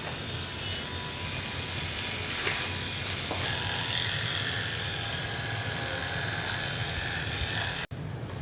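Electric animal clippers running steadily, used to clip the fur before the dog's chest is tapped. The sound breaks off for an instant near the end.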